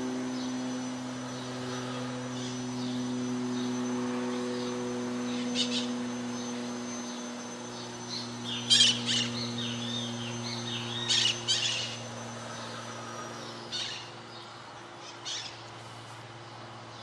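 Birds chirping in short bursts of several quick notes, loudest a little past halfway, over a steady low hum and a steady background hiss. A thin, high, steady whine runs underneath and stops about three-quarters of the way through.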